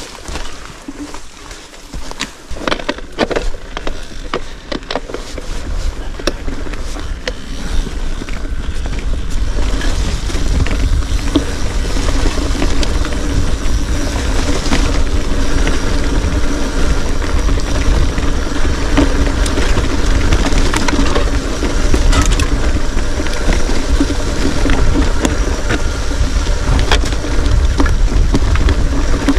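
Bicycle ride noise: wind rushing over the microphone and tyres on the trail, with scattered rattles and clicks. It grows louder over the first ten seconds or so, then holds steady.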